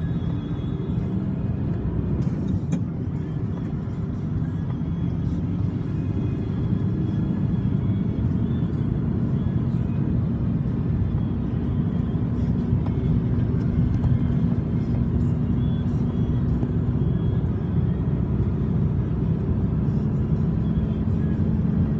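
Fuso Super Great truck's diesel engine heard from inside the cab, running steadily under way with road noise, growing a little louder as the truck picks up speed.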